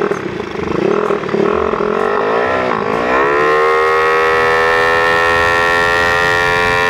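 Yamaha Mio Sporty scooter's big-bore, stroked single-cylinder engine (63 mm bore, 3 mm stroker crank) under hard acceleration. The revs run unevenly and dip briefly about two and a half seconds in, then climb and hold at a steady high pitch as the CVT keeps the engine near peak revs on a top-speed attempt.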